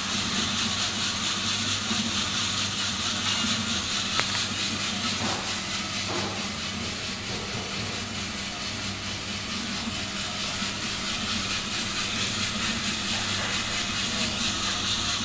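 Probat LP5 drum coffee roaster running: a steady hiss of rushing air over a low, even hum from its motors.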